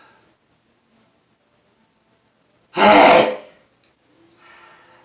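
A man sneezing once, loudly and sharply, about three seconds in, one of a rapid run of sneezes in a sneezing fit. Near the end a faint drawn-in breath builds toward the next sneeze.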